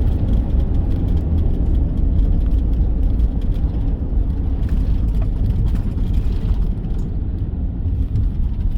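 A car driving: steady low road and engine rumble.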